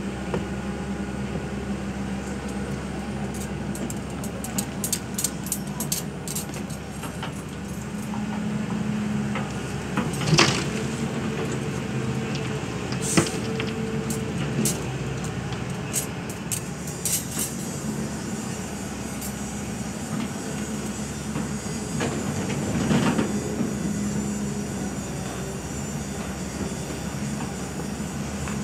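Hyundai hydraulic crawler excavator running steadily as it loads a dump truck, its diesel engine and hydraulics holding a steady hum while the boom swings and the bucket digs and dumps. Scattered clicks and clanks run through it, with a louder swell about ten seconds in and another near twenty-three seconds.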